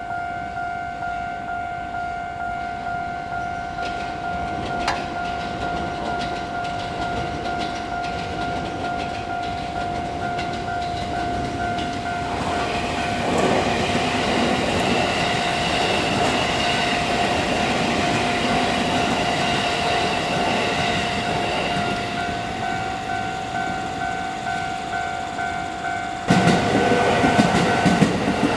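Japanese level-crossing warning bell ringing in a steady repeating rhythm while a train passes. The train's rumble builds from about halfway, and its wheels clatter loudly near the end, when the bell stops.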